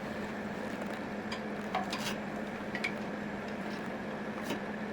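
A few light clicks and taps as a BMX front wheel's hub axle adapters are worked into the fork dropouts and lined up, over a steady low hum.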